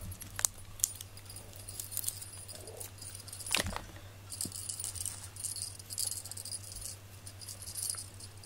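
Cat-teaser wand toy jingling as it is shaken, in several short spells of light metallic rattling, with one brief louder knock about midway.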